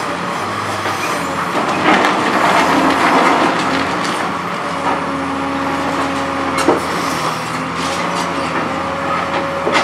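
Liebherr R954B high-reach demolition excavator's diesel engine running steadily under hydraulic load, while its NPK concrete shear crunches through the building's concrete and rubble clatters down. The crunching swells about two seconds in, with a few sharp cracks later on.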